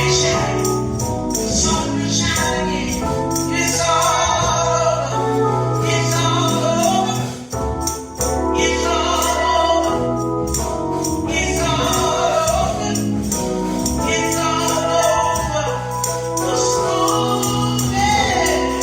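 Gospel music: voices singing over a band with a steady beat, the music dropping out briefly about halfway through.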